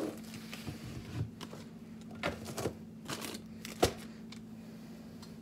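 Scattered light clicks and knocks, the sharpest about four seconds in, over a steady low hum.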